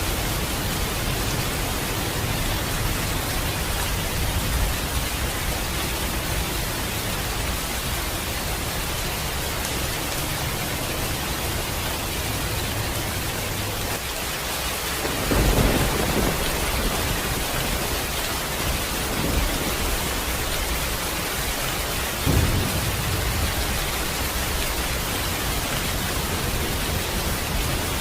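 Steady rain falling with a constant hiss, with rolls of thunder: the loudest rumble about halfway through, a smaller one a few seconds later and another sharp-onset rumble some seven seconds after the first.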